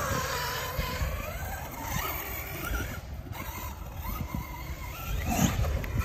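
Brushless electric motor of a Traxxas Maxx RC monster truck whining, its pitch rising and falling with the throttle as it drives across grass, over a low rumbling noise.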